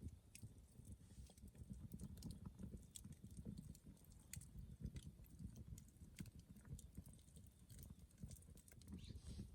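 Near silence, with a faint low rumble and scattered small clicks.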